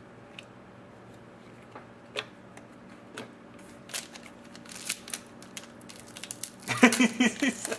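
Trading cards being handled and flipped through by hand: scattered light clicks and snaps, turning into a denser run of crinkling and clicking near the end.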